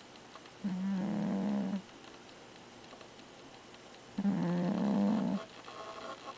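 A sleeping cat snoring: two snores, each about a second long with a steady pitch, about three and a half seconds apart.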